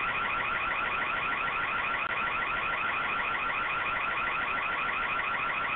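Ring Floodlight Cam's built-in siren blaring, a loud, steady electronic alarm with a fast repeating warble, set off to drive away an intruder.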